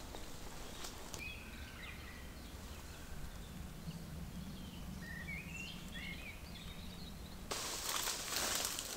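Birds chirping in short, quick rising and falling calls over a low steady hum. About seven and a half seconds in, a louder rustling hiss takes over.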